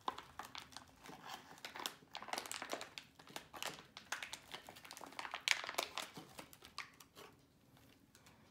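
Crinkling of a foil-laminate MRE food pouch as it is handled and squeezed by hand, a dense run of irregular crackles that thins out near the end.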